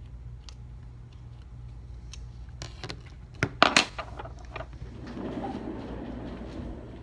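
Scattered sharp clicks and taps of small hard objects, with a loud cluster about three and a half seconds in, then a soft scraping rustle, over a steady low hum.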